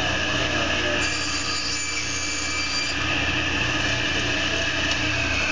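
Table saw with a 10-inch blade running steadily while a wooden board is crosscut on a miter gauge; a higher whine joins about a second in and lasts about two seconds as the blade cuts through the wood.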